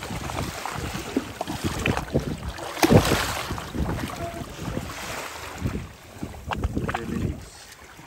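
Water splashing and sloshing as a fishing net is hauled up by hand over the side of a boat, with irregular splashes and short knocks; the loudest splash comes about three seconds in.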